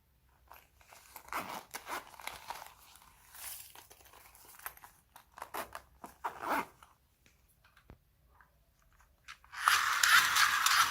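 Slime being squeezed and pulled apart by hand, crackling and crunching in irregular bursts. Near the end a denser, louder crackling rattle starts.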